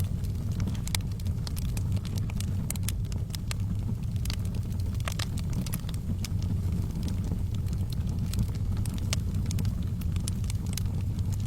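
Fire burning in a fireplace: a steady low rumble of flames with irregular sharp crackles and pops.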